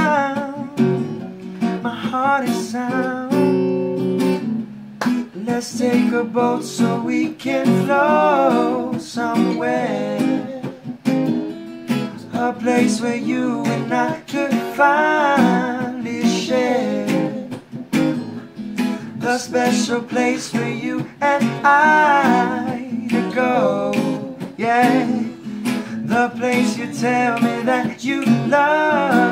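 Acoustic guitar strummed steadily under a voice singing a song.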